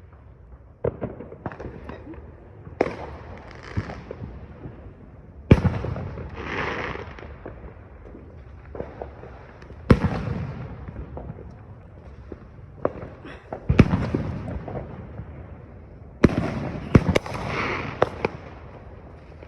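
Fireworks going off at varying distances: scattered sharp bangs with the loudest about five and a half, ten and fourteen seconds in, several followed by a long crackle.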